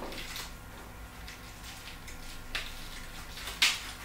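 Papery skin of a garlic bulb crackling as the bulb is pressed open and its cloves pulled apart by hand: a few brief rustling crackles, the loudest near the end.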